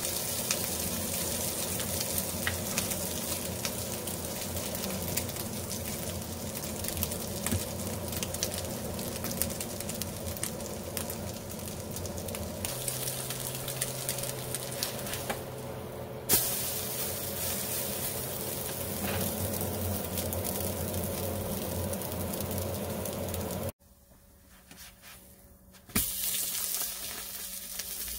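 French toast (egg-soaked bread) sizzling and crackling as it fries in a hot stainless steel pan. There are two sharp knocks, one about sixteen seconds in and one near the end, and the sizzle drops away for a couple of seconds shortly before the second.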